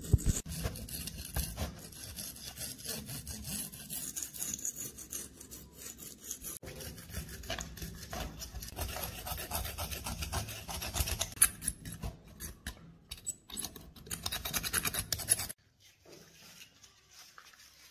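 A thin steel pick scraping hardened dirt and rust crust off a corroded pistol frame, in quick, irregular scratching strokes. The scraping stops suddenly near the end, leaving only a faint background.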